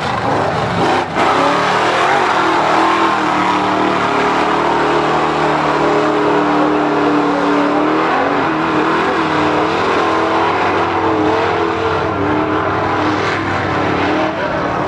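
Lifted Chevrolet mud truck's engine running loud and hard as it churns through a mud pit, its pitch wavering up and down.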